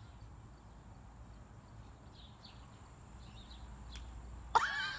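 Quiet outdoor background with a low rumble and a few faint chirps, a single sharp click about four seconds in, then a sudden loud, high-pitched voice exclaiming near the end.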